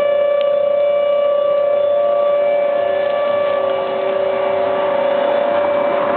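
Outdoor civil-defense warning sirens sounding for a severe thunderstorm warning, holding one steady wailing pitch with overtones above it.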